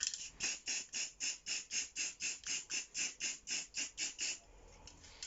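Rapid back-and-forth rubbing strokes on a washing machine's surface, about five a second, stopping after about four seconds.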